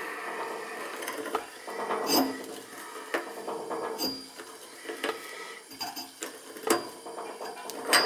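Pipe wrenches clicking and scraping against a threaded copper fitting on a water heater's water connection as it is turned, with several sharp metallic clicks.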